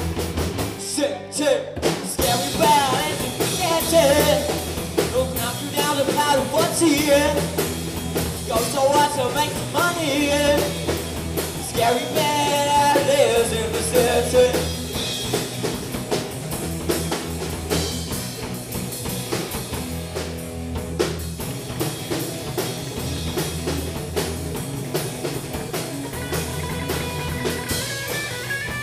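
A live rock band plays: drum kit, electric guitars and bass, with a boy's lead vocal. The band breaks off briefly about a second in, then the singing runs until about halfway through, and after that the band plays on without vocals.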